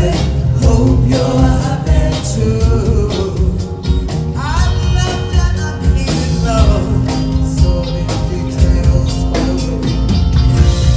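Live rock band playing an instrumental stretch: drums and bass with a melodic lead line over them.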